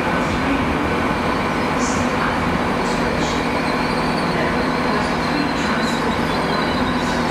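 Great Western Railway Hitachi intercity train (Class 800 family) moving past the platform: a steady rumble of wheels on rail with a steady hum at several pitches.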